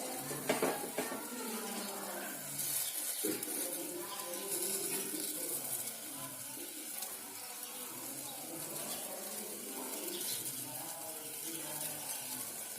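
Kitchen sounds of water with a steady hiss, and two sharp knocks of a utensil, one near the start and one about three seconds in.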